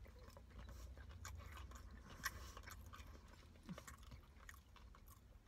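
Faint chewing of a bite of fish sandwich: soft irregular mouth clicks, one a little louder a couple of seconds in, over a steady low hum.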